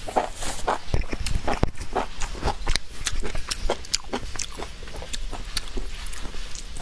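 Close-up eating sounds: chewing and crunching food, a quick irregular run of short crisp crunches and wet smacks.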